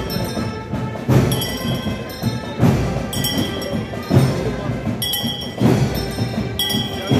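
Slow procession percussion: a deep drum struck about every one and a half seconds, with a metal hand bell rung between the beats, its bright ringing dying away after each strike. Crowd voices murmur underneath.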